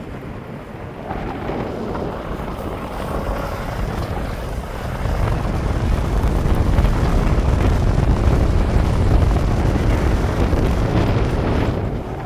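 Strong wind buffeting the microphone in gusts, the low rumble swelling about five seconds in and easing near the end, over the wash of sea waves.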